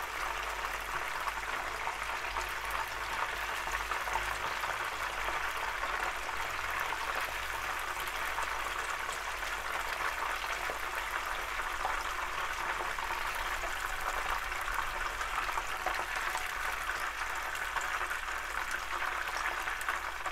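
Hot oil sizzling and bubbling steadily in a frying pan as battered oysters and tara sprouts deep-fry for tempura, with fine crackling.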